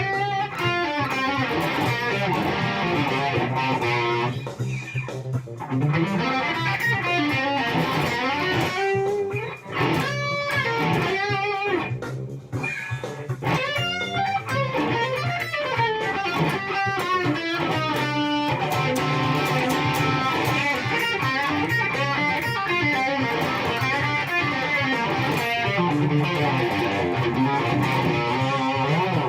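Electric guitar played through a Yamaha THR100HD amplifier's lead channel and its 2x12 cabinet, improvising a lead solo with bent and wavering notes.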